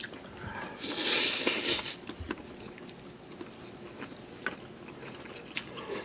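A person eating Samyang spicy ramen noodles: a noisy slurp lasting about a second, starting about a second in, then quieter chewing with small wet mouth clicks.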